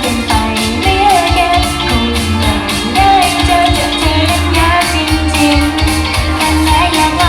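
Idol pop song played loud: female singing over a steady beat with a strong bass line.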